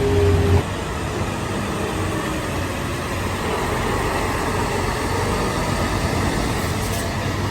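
Heavy road-construction machinery running, a dense, steady mechanical din; an engine hum cuts off about half a second in.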